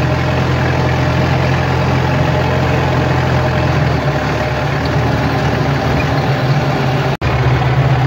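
Wheel loader's diesel engine running steadily, heard from inside the cab, with a slight change in its note about halfway through as the lift arms raise the bucket. The sound drops out for an instant near the end.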